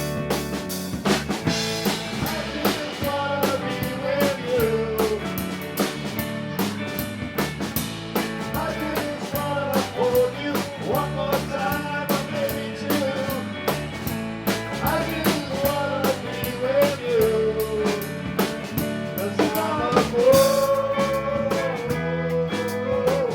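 Band playing a blues-rock song: drum kit and bass keep a steady beat while a lead melody line bends and slides in pitch above them.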